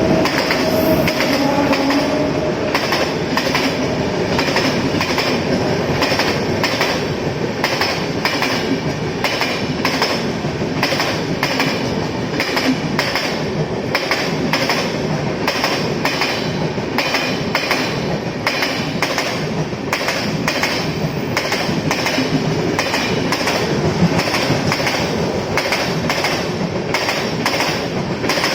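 A train running along the track, its wheels clacking over the rail joints again and again over a loud, steady rumble.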